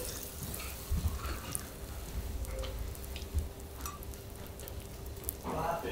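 Faint sizzling on a teppanyaki griddle with scattered light clicks, over a steady low hum.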